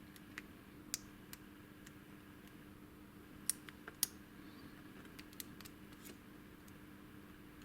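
Lock picks and a tension wrench working the pins of a Master Lock padlock: scattered small sharp metallic clicks and taps, the two loudest about three and a half and four seconds in, over a faint steady low hum.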